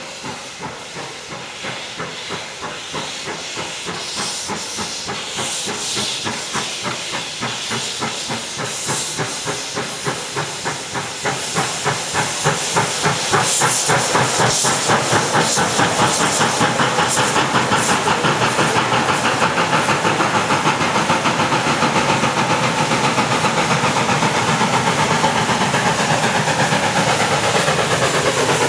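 Baldwin 4-6-0 narrow-gauge steam locomotive working toward the listener with its cylinder cocks open: rhythmic exhaust chuffs over hissing steam, growing louder and quickening as it approaches.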